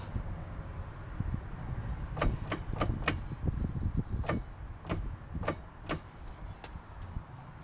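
GAZ-31105 Volga's rear axle final drive knocking: irregular clunks and sharp clicks over a low rumble, coming thickest about two to six seconds in. It is the knock of a worn rear axle reduction gear.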